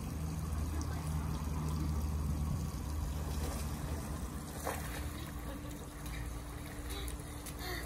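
Water spraying from the slip and slide's sprinkler jets onto the wet plastic mat, a steady hiss with a low rumble underneath.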